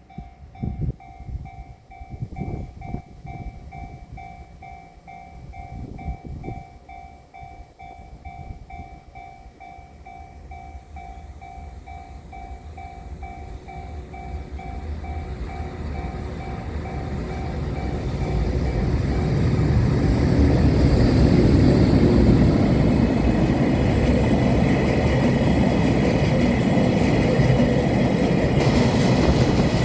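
Japanese level-crossing warning bell dinging about twice a second. A freight train then approaches and passes: a JR Freight EH500 electric locomotive hauling sixteen empty tank wagons, its rumble building from about halfway and loud over the last third, with the wheels clacking over rail joints.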